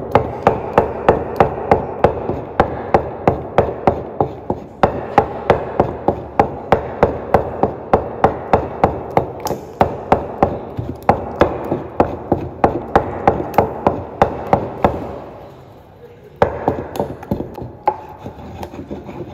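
Wooden pestle beating bean paste against the sides of a wooden mortar: a rhythmic wood-on-wood knocking at about three strokes a second over the swish of the wet batter, as the paste is whipped to make it light and fluffy for akara. The beating breaks off briefly about five seconds in and again near the end.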